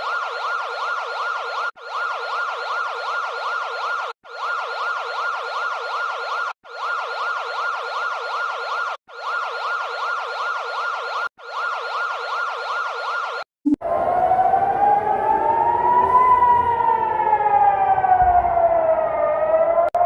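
Moroccan emergency alert tone: a fast warbling electronic wiggle, played as six stretches of about two seconds with short breaks. About thirteen and a half seconds in it gives way to a civil-defense siren recorded outdoors, wailing slowly up and then down: a rocket-attack warning.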